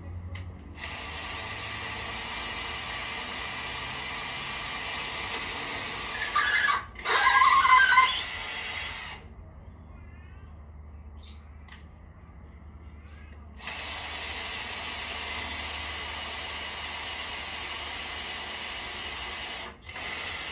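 An electric power tool running in long steady stretches, with a louder, squealing stretch about six to eight seconds in. It stops for about four seconds midway, then runs again with a brief break near the end.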